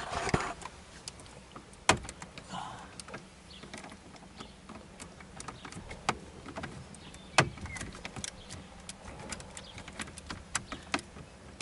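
Irregular small clicks and knocks of a hand socket driver with a 9/32 socket fumbling at a screw in a car's plastic dash trim, where the socket keeps slipping. There is a sharper knock about two seconds in and another near seven and a half seconds.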